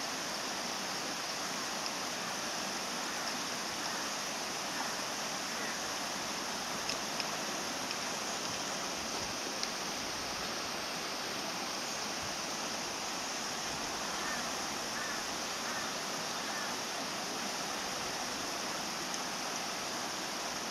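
Steady, even hiss of background noise, with a few faint chirps about two-thirds of the way through.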